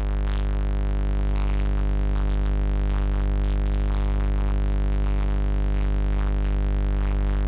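Synthesizer keyboard holding a steady, sustained chord with a strong low bass, played as a background pad under preaching.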